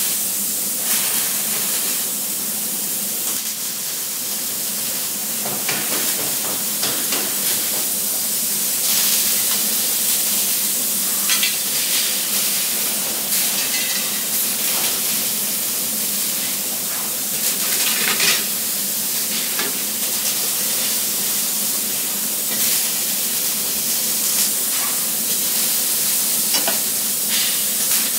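Robotic arc welding: a steady crackling hiss from the welding arc, with short sharper pops scattered throughout.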